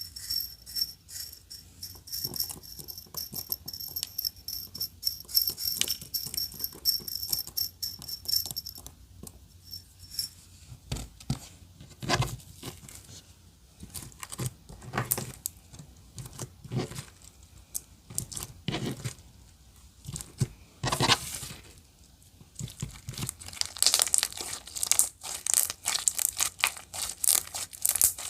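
Clear slime being squished and stretched by hand, giving irregular wet clicks and pops, with a dense crackle of small bubbles in the last few seconds. A steady high whine runs alongside for the first nine seconds.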